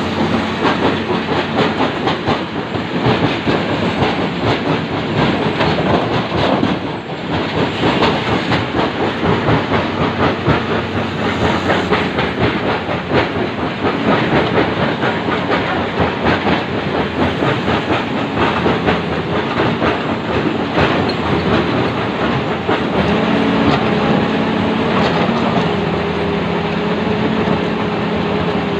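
Komatsu PC200 hydraulic excavator moving on its steel crawler tracks: a continuous rapid clanking and rattling of the track links over the diesel engine. In the last few seconds the clatter eases and the engine is heard running steadily.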